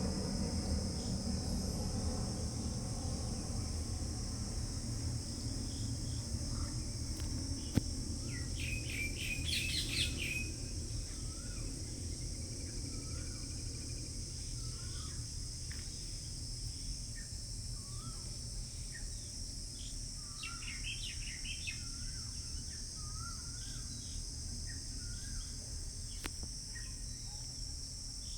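Pond-side countryside ambience: a steady, high insect drone from crickets, with birds calling over it. There are two quick bursts of rapid chirps, about nine seconds in and again about twenty seconds in, and short, rising whistled notes repeat in between. A low rumble fades away over the first ten seconds.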